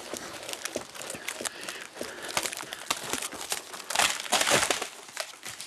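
Dry twigs, branches and leaf litter crackling and snapping as someone pushes on foot through dead woodland undergrowth, with the loudest burst of snapping about four seconds in.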